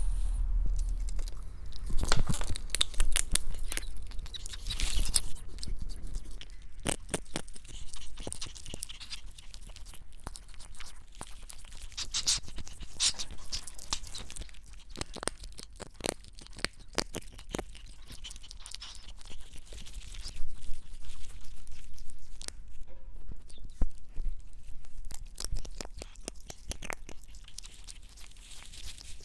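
A ferret crunching dry kibble: irregular sharp crunches and clicks of chewing.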